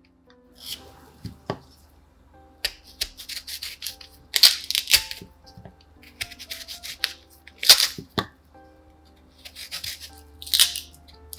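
Soft instrumental background music with short bursts of rubbing and scraping from baking preparation, coming every couple of seconds.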